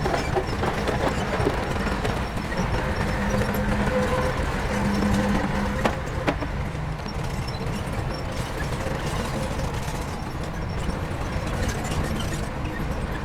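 Heavy diesel earthmoving machinery running steadily with a deep engine rumble, and two sharp clicks about six seconds in.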